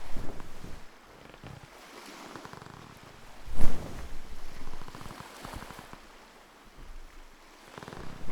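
Foley sailboat effect: a creaky wooden floor creaking in rasping runs under shifting body weight, standing in for a ship's deck, with a light bedsheet flapped to stand in for a sail in the wind. One loud flap or whoosh about three and a half seconds in.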